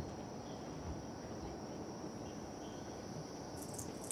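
Steady outdoor night ambience: a constant high-pitched whine over a low background hiss, with a few faint high clicks near the end.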